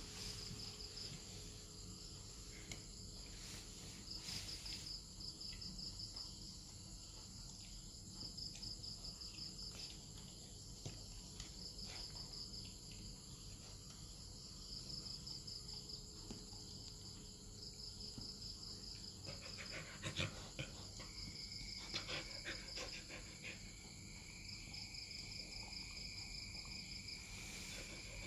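Crickets chirping faintly in short pulsed trills that repeat every few seconds. A few soft clicks come about two-thirds of the way through, and a thin steady high whine joins for the last quarter.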